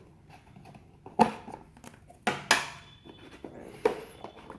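Plastic packaging being handled and opened: quiet crinkling broken by a few sharp clacks, the loudest about a second in and two more close together about halfway through.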